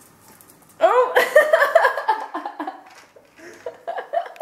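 A person laughing for about a second and a half, starting about a second in. Near the end there is faint crunching from a small terrier eating dry food from its bowl.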